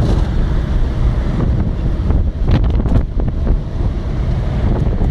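Loud wind noise buffeting a Nokia N8 phone's microphone inside a moving car, heaviest in the low end, with a few brief crackles about two and a half seconds in.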